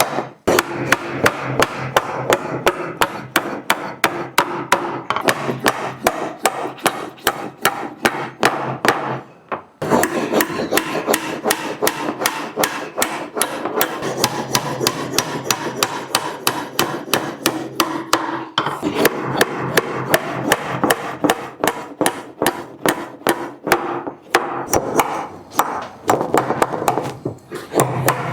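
Hammer driving nails into wood: steady blows about two to three a second, with a brief pause about nine and a half seconds in.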